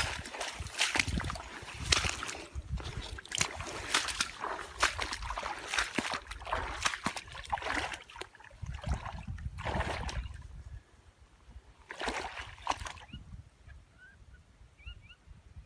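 Water sloshing and splashing irregularly in a tidal marsh, with wind rumbling on the microphone. After about ten seconds it mostly dies down, apart from one more splash a little later, and faint bird chirps come in near the end.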